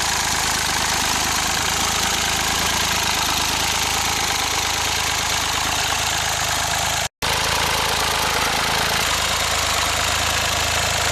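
The LifeTrac open source tractor's engine running steadily at idle while the hydraulic-drive tractor moves around. The sound drops out for a split second about seven seconds in.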